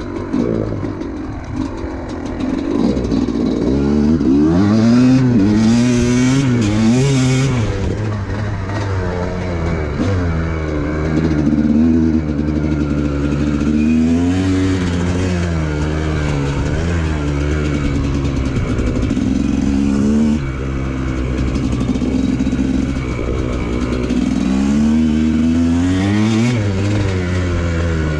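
TM 250EN 250cc two-stroke enduro motorcycle engine under way, revving with the throttle so that its pitch rises and falls many times.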